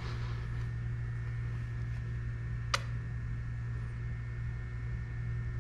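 Steady low hum, with one sharp click about three seconds in.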